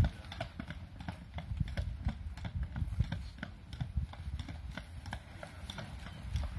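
Carriage horse's hooves clip-clopping at a walk on the paved causeway road, a quick, uneven run of knocks over a steady low rumble.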